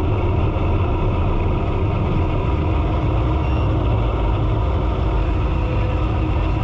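Car engine idling: a steady low rumble heard from inside the car, with a brief faint high beep about three and a half seconds in.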